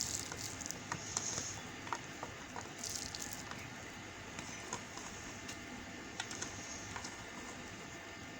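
A knife cutting white bar soap: short scraping hisses as the blade slices, with many small crisp clicks and crumbles of soap.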